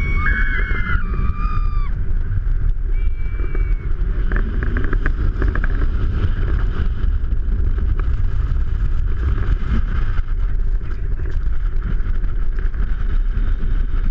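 Steady rumble of linked inflatable snow tubes sliding over groomed snow, with wind buffeting the tube-mounted microphone. A high-pitched squeal sounds in the first two seconds and briefly again a little after.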